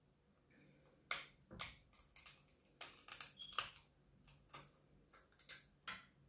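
Cooked king crab leg shell cracking and snapping as it is broken apart by hand: about a dozen sharp, irregular cracks starting about a second in.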